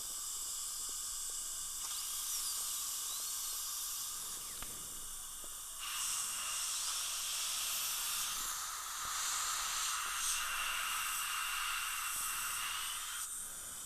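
Dental suction hissing steadily, joined about six seconds in by a high-speed dental handpiece running with a steady high whine, which stops suddenly near the end: the drill is cutting an access hole through the crown of a cemented implant bridge toward the abutment screw.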